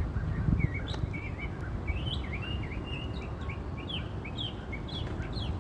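A songbird singing a string of short, quick notes, many of them sliding up or down, over a steady low rumble.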